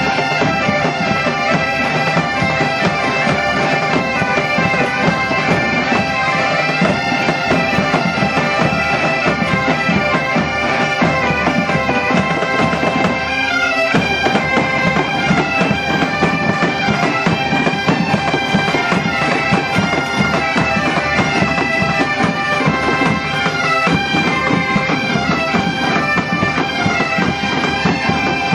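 An ensemble of Galician bagpipes (gaitas) playing a tune together over their steady drones, with bass drum and snare keeping the beat. The music breaks off briefly about halfway through and picks up again.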